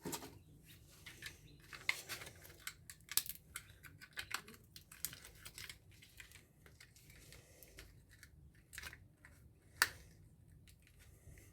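Scattered small clicks, ticks and light rattles of plastic and metal parts being handled and pried apart as an air-conditioner indoor unit is stripped by hand, with one sharper click just before ten seconds in.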